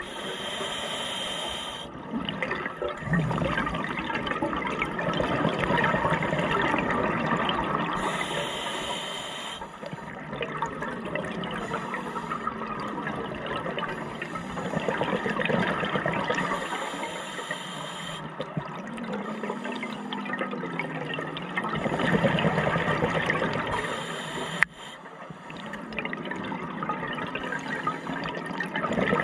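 Scuba regulator breathing heard underwater: exhaled bubbles rushing and gurgling, with a brief higher hiss about every eight seconds. A single sharp click comes near the end.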